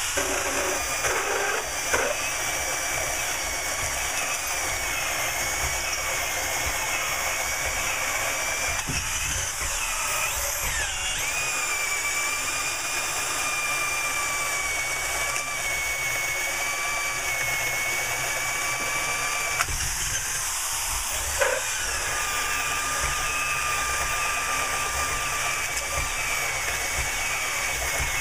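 Two corded electric drills running at once, one driving a traditional hole saw and the other a Black Pointer Rapid Bore bit, boring holes through a timber beam. The motors give a steady whine whose pitch shifts a couple of times as the bits load up in the wood.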